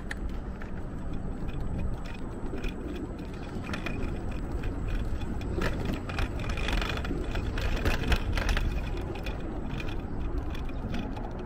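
Footsteps on a wooden boardwalk, heard as scattered light clicks and knocks over a steady low outdoor rumble.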